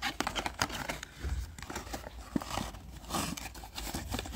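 Hands opening the tuck flap of a small paperboard LED bulb box: a run of irregular card scrapes, rustles and small clicks.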